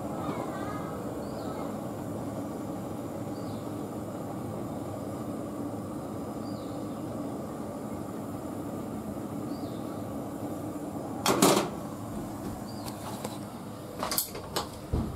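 Steady hiss of a gas burner running under a non-stick frying pan with oil. A loud metal clatter comes about eleven seconds in, and a few sharp knocks near the end, as the pan is handled on the stove grate.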